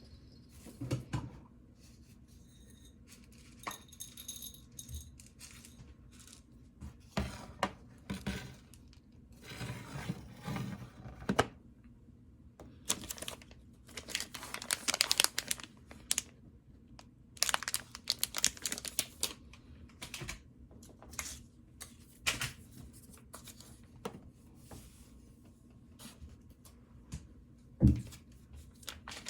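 Plastic packaging rustling and being torn, with scattered clicks and clinks, as cat breakfast is prepared. A longer spell of louder rustling falls in the middle, and a single sharp knock comes near the end.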